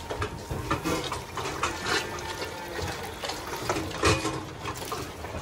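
Milk running from the hose nozzle of a calf-feeding milk cart into a steel bowl, splashing and filling with an uneven, gurgling pour.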